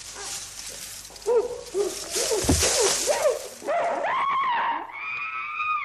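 Chimpanzees hooting and then screaming loudly, with a crash and clatter about two and a half seconds in, over the hiss of an old film soundtrack.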